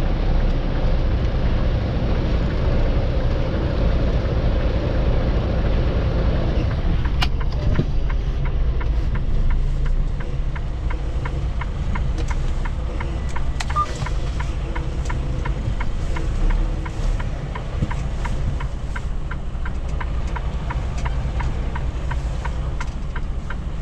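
Semi-truck diesel engine running at low revs while backing an empty container chassis, a steady low rumble. About seven seconds in the engine note eases off and a run of light, quick ticks comes in over it.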